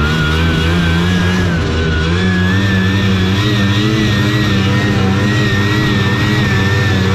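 Taiga Varyag 550 snowmobile's two-stroke engine running under way. Its note steps up about two seconds in, over a high whine that wavers up and down.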